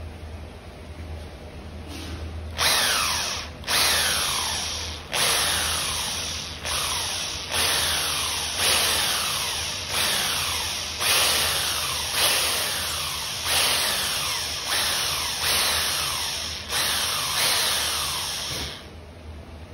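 Variable-speed electric hand drill boring with a twist bit into a broken stem screw lodged in a brass tuba valve piston, to drill it out. The trigger is worked in about a dozen short bursts, each starting sharply with its whine falling away as the motor slows, until the drilling stops shortly before the end.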